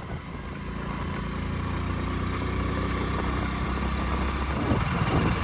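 Scooter's small engine running steadily as it rides along; the engine note grows a little stronger after about a second and drops away shortly before the end.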